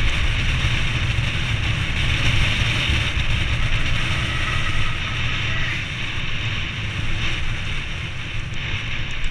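Wind buffeting a helmet-mounted camera's microphone as a mountain bike descends a paved road at speed, a loud, steady rush with a heavy low rumble. It cuts off suddenly at the end.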